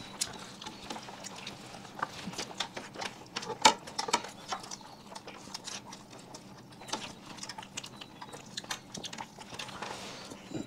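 Scattered small clicks and taps of people eating a meal at a table, with quiet chewing; one louder tap about four seconds in.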